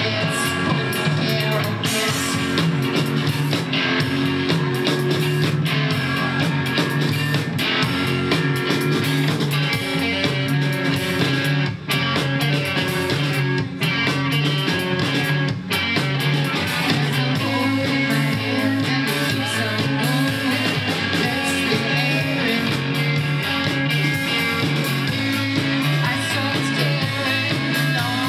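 Live rock band playing: cello, electric guitar and drum kit, with a woman singing. The music stops for short breaks twice about halfway through.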